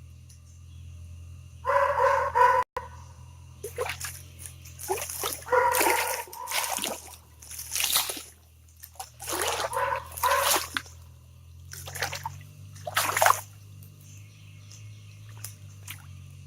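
Hands splashing and sloshing in shallow creek water in a string of short, irregular bursts, grabbing at a bass.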